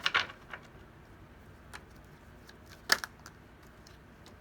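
A few sharp clicks and taps from a deck of tarot cards being handled and shuffled, with a cluster at the start and the loudest tap about three seconds in.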